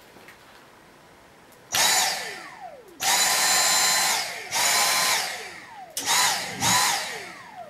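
Dyson V6 cordless vacuum's digital motor run in five short bursts on the trigger, each rising to a high whine and winding down with a falling tone when released, with its rear HEPA exhaust filter taken off.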